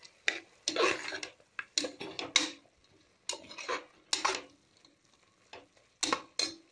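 A spoon stirring and scraping country-chicken legs with onion paste and spices in a cooking pot, in short irregular strokes with pauses between.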